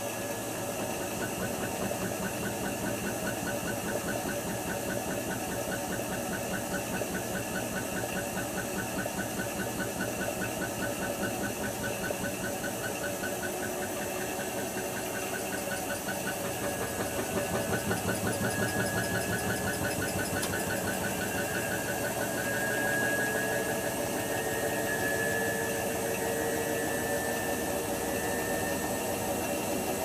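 Hotpoint HF8B593 front-loading washing machine spinning its drum: a steady motor whine with a fast, even rhythmic pulse. Past the middle the whine rises in pitch and gets a little louder as the drum speeds up.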